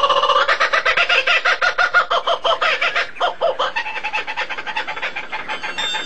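A bird calling in a fast run of repeated pitched notes, clucking, that grows softer over the last couple of seconds.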